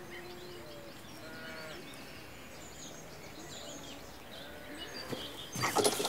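Quiet farmyard ambience: farm animals calling now and then, one long low call among them, with birds chirping throughout. A brief burst of rustling near the end.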